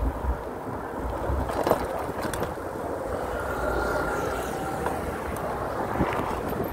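Wind rushing over the microphone and the rolling rumble of a mountain bike's tyres on a paved street while riding.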